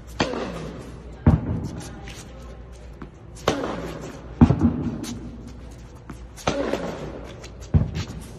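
Tennis rally: sharp pops of tennis balls struck by rackets and bouncing on a hard court, six in all, coming in pairs about a second apart, each ringing on in the echo of the large fabric dome.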